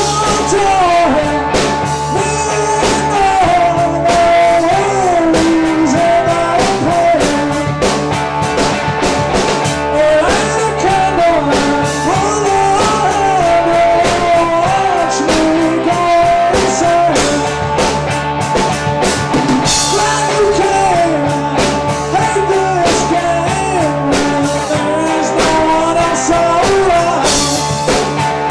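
Live rock band playing loudly: a man sings lead over a Telecaster-style electric guitar and a drum kit.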